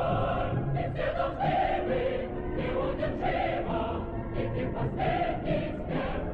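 A choir singing over musical accompaniment.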